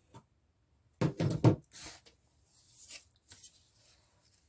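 Picture frames handled on a tabletop: a quick cluster of knocks about a second in as a frame is set down, followed by quieter sliding and handling noises.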